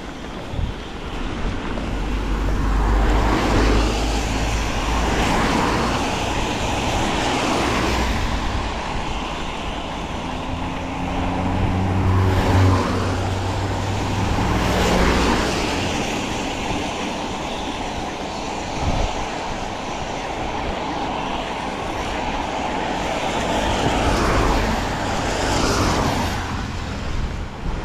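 Road traffic: several motor vehicles pass one after another, each swelling and fading, with one engine's hum standing out about twelve seconds in.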